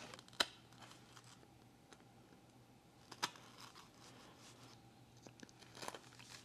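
Awl punching through grip tape into the screw holes of a 3D-printed plastic mount: faint scratching with a few sharp clicks, the clearest about half a second in, another a little after three seconds and one near the end.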